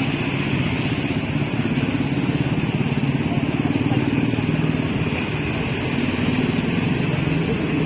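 Diesel engine of a large intercity bus running up close: a steady low drone that rises slightly in pitch a couple of times as it pulls out.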